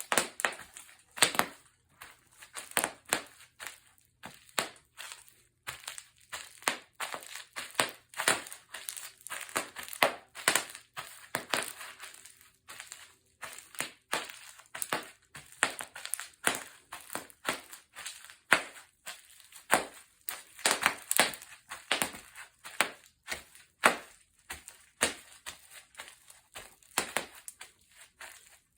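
Bubble wrap being stepped on, its bubbles bursting in irregular sharp pops and crackles, often several a second.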